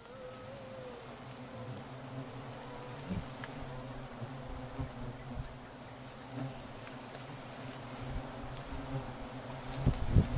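Giant honey bees (Apis dorsata) buzzing around their open comb: a steady swarm hum, with the pitch of single bees rising and falling as they fly close in the first second. A few knocks come near the end.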